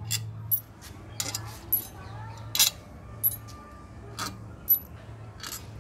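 Loose steel 8 mm bolts clinking against each other in a hand as they are drawn one by one out of a Hero Maestro Edge scooter's kick-start chamber cover: a string of short, sharp metallic clicks. A low steady hum runs underneath.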